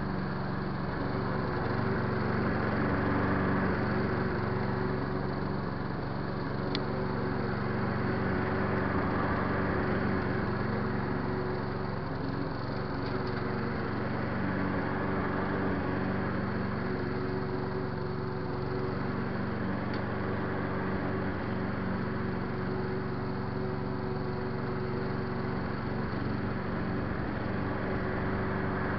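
Sabo 43-4 Turbostar walk-behind mower's Briggs & Stratton single-cylinder four-stroke petrol engine running steadily at working speed while the mower is pushed over the lawn, its blade and airflow sucking up raked-out thatch into the grass bag.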